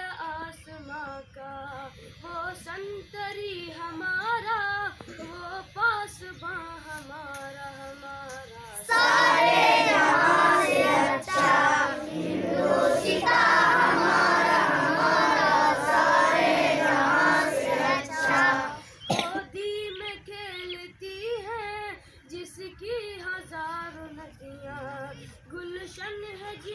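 Children's voices singing a patriotic song without instruments. About a third of the way in, the singing turns much louder and fuller, as if the whole group joins in, then drops back to fewer, quieter voices about two-thirds through.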